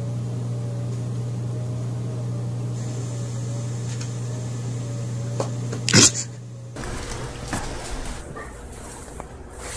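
A steady mechanical hum, like a fan or appliance running in a small room, with a faint wavering tone over it. About six seconds in there is a sharp knock. Soon after, the hum gives way to a rougher background noise with a few small knocks.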